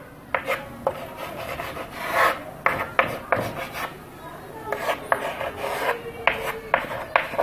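Chalk scratching on a chalkboard as numbers and words are written, in a series of short, irregular strokes with brief pauses between them.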